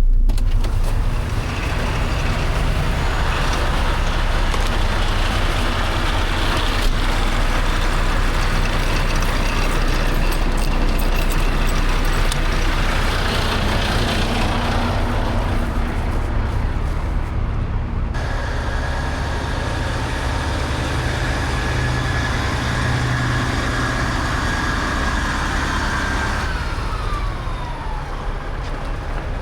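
Semi-truck under way: steady engine and road rumble. About two-thirds of the way through a steady whine joins in, and it glides down in pitch near the end.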